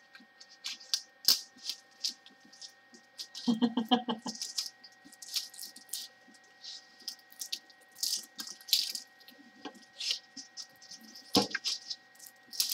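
Plastic wrapping on a rolled canvas being slit with a small hand-held safety cutter and crinkling as the roll is handled: scattered short rustles and scrapes, with a denser patch of rustling about three and a half seconds in and a sharp click about a second before the end.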